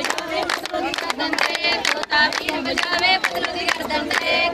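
A group of women singing boliyan (Punjabi folk couplets) to brisk hand-clapping for giddha, several claps a second.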